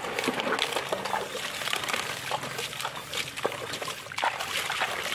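Muddy water splashing and trickling as a plastic toy dump truck is swished and rinsed in a shallow puddle, with many small irregular splashes.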